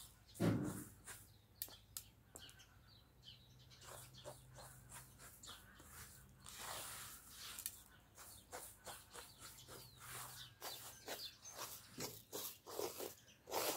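Uncooked rice grains rustling and skittering across a large metal tray as a hand sweeps and picks through them, in many small scrapes and ticks. A dull knock comes about half a second in.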